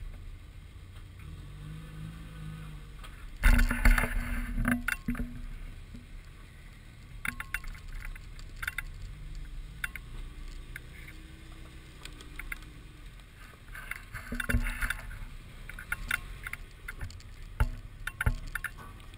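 Toyota 4Runner crawling up a rutted dirt trail: a low engine rumble under irregular clunks, knocks and crunches as the tyres and suspension work over dirt and rock. The loudest cluster of knocks comes about three and a half seconds in, with more scattered clunks later.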